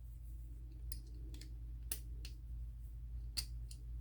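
A few faint, scattered light clicks and taps of small metal hand tools and knife parts being handled.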